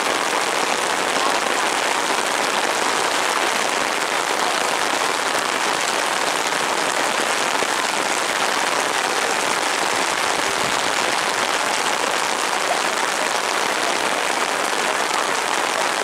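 Heavy rain falling, a steady, even hiss with no breaks.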